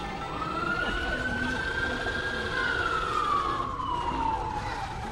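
A siren wailing: its pitch rises quickly, holds for about two seconds, slides slowly down, and rises again near the end, over a steady low rumble.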